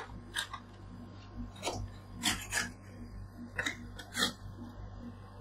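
Metal spatula scraping across a steel ice-roll cold plate, lifting a frozen Pocari Sweat layer that breaks into brittle flakes instead of rolling. Several short scrapes and taps at uneven intervals, over a steady low hum.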